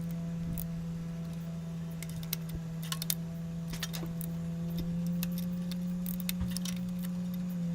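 Scattered light metallic clicks and clinks of a socket and ratchet tightening spark plugs, over a steady low hum.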